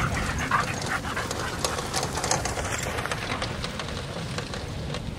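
Harnessed huskies giving a few short yips and whines over a steady noisy background, with more of them in the first second or so.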